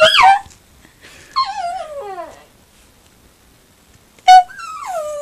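A Yorkshire terrier puppy howling along in long, wavering whines that slide down in pitch, once about a second in and again near the end. A short, high, steady note comes just before the second one.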